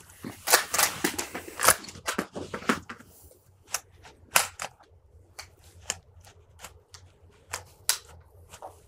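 AR-15 rifle's action and magazine being worked by hand while a malfunction is set up: a quick run of metallic clicks and clacks in the first three seconds, then scattered single clicks.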